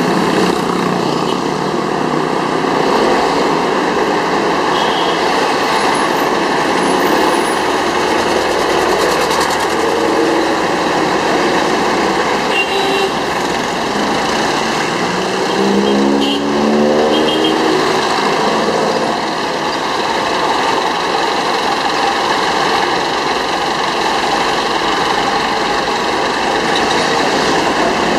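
Steady engine and road noise of a moving jeepney heard from aboard, with other jeepneys running close alongside. About halfway through, an engine revs up and rises in pitch as a vehicle accelerates.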